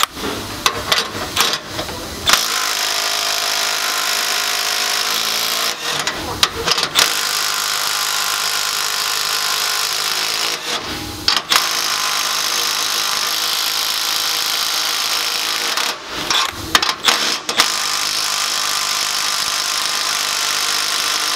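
Milwaukee 3/8-inch right-angle impact wrench hammering at bolts torqued to about 160 ft-lb and breaking them loose, near its rated limit. It runs in four long stretches of a few seconds each, with short clicky pauses between them as the socket goes onto the next bolt.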